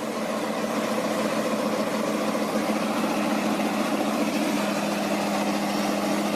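A vehicle engine running steadily at a constant speed, growing slightly louder over the first second or two.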